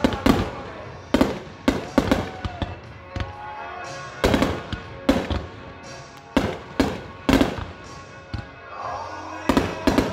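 Aerial firework shells bursting overhead in a rapid, irregular barrage of sharp booms, the loudest in clusters near the start, about four seconds in and near the end. Music plays underneath.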